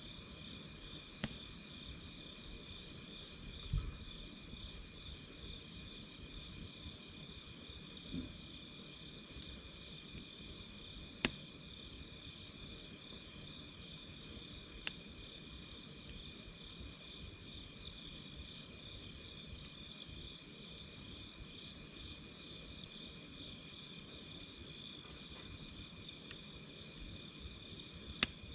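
Wood fire with a few sharp, sparse crackling pops, over a steady, fast-pulsing chirp of insects.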